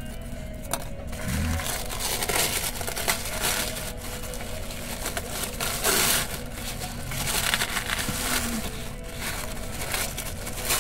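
Plastic packaging crinkling and rustling as it is handled and opened, in irregular uneven bouts, with a faint steady hum underneath.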